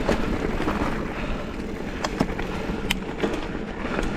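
Mountain bike rolling over a dirt singletrack: steady tyre rumble with scattered sharp clicks and rattles from the bike going over the bumpy trail.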